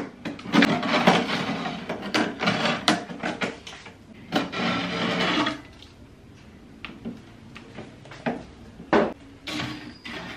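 Food being packed into a mini fridge's freezer compartment: plastic packaging rustling and plastic containers knocking against the compartment. Busy handling for the first half, then a few scattered knocks.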